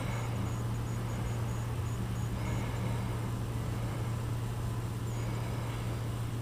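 Steady low hum over a faint even hiss, unchanging throughout.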